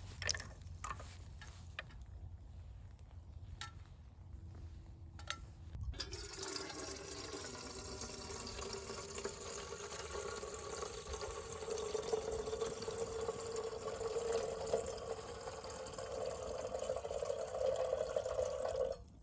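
A few light clicks and knocks as small wood chips are dropped into a folding stainless steel wood stove. About six seconds in, water starts pouring in a thin stream into a stainless steel kettle: a steady splashing whose tone rises slowly as the kettle fills. It cuts off suddenly near the end.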